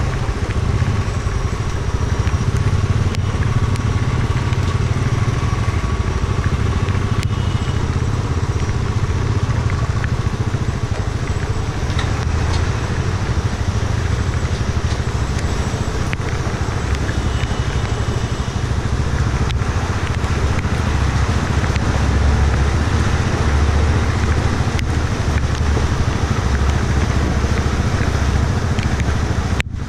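Motorcycle engine running steadily at low speed on a rough, wet gravel road, with wind and road noise on the bike-mounted camera's microphone and scattered clicks of loose stones. The sound drops out briefly near the end.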